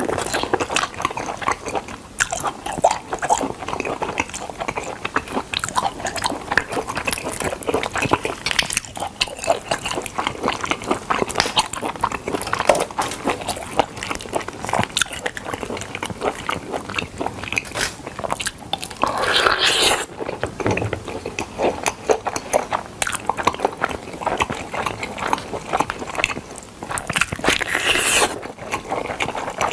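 Close-miked chewing and biting of smoked chicken: a dense, irregular run of small mouth clicks and smacks, with a louder bite about two-thirds of the way through.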